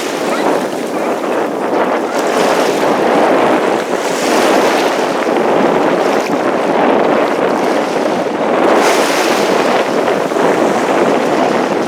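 Sea waves washing on the shore, surging louder about four seconds in and again near nine seconds, with wind rushing over the microphone.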